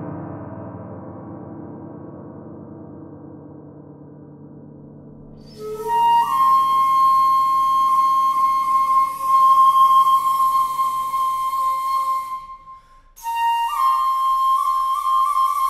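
A piano chord dying away, then a shakuhachi comes in about five and a half seconds in, stepping up into one long held note. The note breaks off briefly near the end and comes back as another long note with a small step up.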